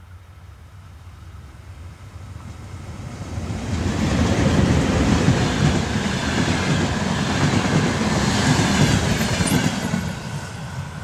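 A passenger train hauled by a VL82M electric locomotive passes close by at speed. Rumble and wheel clatter on the rails swell about three seconds in as the locomotive arrives, stay loud while the coaches rush past, then fade near the end as the train moves away.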